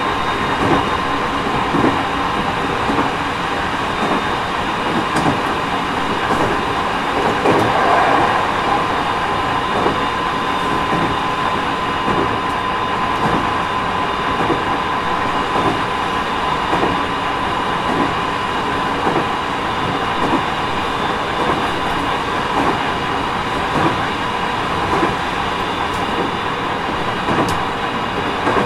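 Running sound inside a JR East 209 series 3000-subseries electric train car (MoHa 208-3002), on the move between stations: a steady rumble of wheels on rail with regular clicks at rail joints and a faint steady whine.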